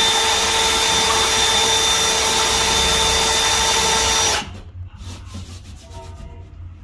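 Power drill running steadily at constant speed, then stopping abruptly about four and a half seconds in, followed by faint clicks and knocks of handling.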